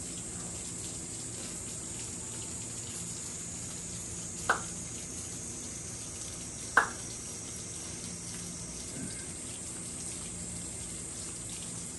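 Steady rain falling, an even hiss with no break. Two short sharp taps stand out, about four and a half seconds in and again about two seconds later.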